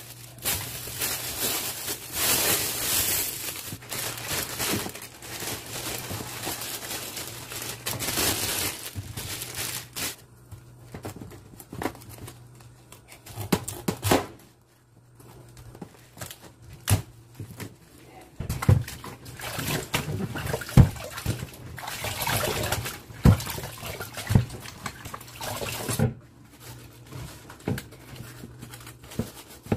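Kitchen prep sounds: napa cabbage leaves being handled and pulled apart, then washed under running tap water that splashes into a plastic bowl in a stainless steel sink. Rustling and sharp knocks and clicks come through, with a steady low hum in the first half.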